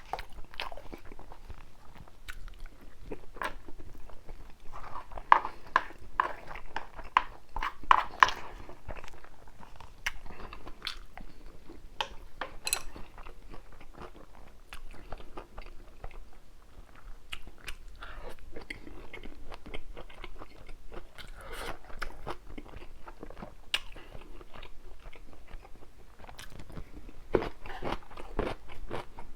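Close-miked chewing and crunching of food by one person, with a run of louder crunchy bites about five to eight seconds in.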